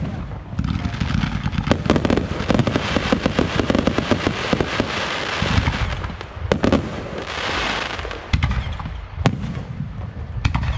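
Aerial fireworks shells bursting high overhead: several sharp bangs a second or two apart, with a dense crackling and hissing between them.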